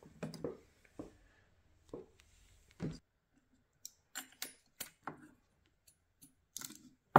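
Scattered light clicks and knocks of small plastic and metal xenon headlight parts being handled: a xenon igniter and a D2S bulb picked up and fitted together.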